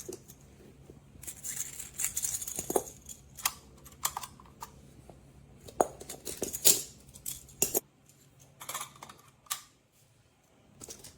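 Toy building blocks being handled: irregular clacks and clicks as pieces knock together, with rustling in between.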